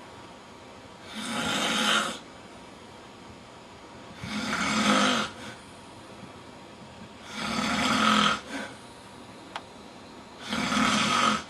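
A man snoring in a steady rhythm: four loud snores about three seconds apart, each lasting about a second.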